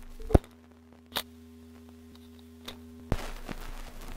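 Phonograph record being turned over on playback: a few sharp clicks and a pop as the record is handled and the stylus set down, then about three seconds in the hiss of the needle running in the groove, over a steady low hum.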